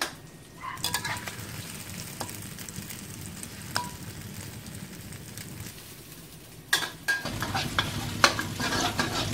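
Thai minced-pork omelette frying in oil in a steel wok, sizzling steadily, with a metal spatula scraping and clicking against the wok now and then as it is stirred. The sizzle grows louder near the end.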